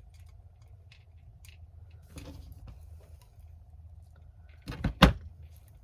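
Pliers working a metal keychain crimp end: a few faint handling clicks, then two sharp clicks in quick succession near the end as the jaws bite on the metal.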